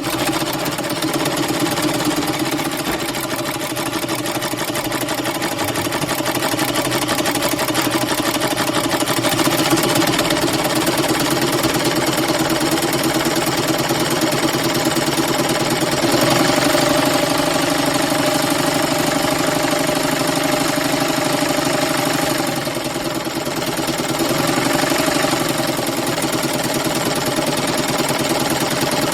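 Sewing machine running continuously, its needle mechanism stitching with a fast, even clatter and a steady motor hum. The run eases briefly about two-thirds of the way through, then picks up again.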